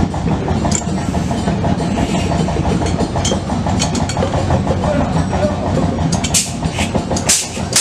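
Vintage tractor engine running at low speed with a steady, rapid pulse; sharp clicks join in during the last couple of seconds.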